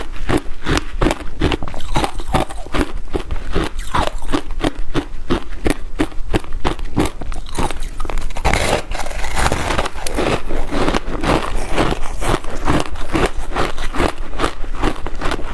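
Close-up crunching and chewing of a bar of frozen passion fruit ice, a quick steady run of crunches at about four a second, with a fresh bite into the bar about eight seconds in.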